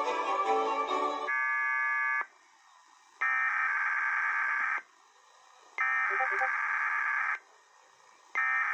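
Emergency Alert System SAME header: bursts of shrill digital data tones, each about a second and a half long with a second of silence between, that open a broadcast EAS required weekly test. A short string-music passage ends about a second in, followed by a brief cluster of tones before the first data burst; the third burst begins near the end.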